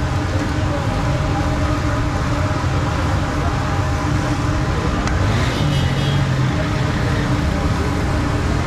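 Steady road traffic noise, vehicle engines running with a low rumble and a constant hum, with a short rise a little after five seconds in.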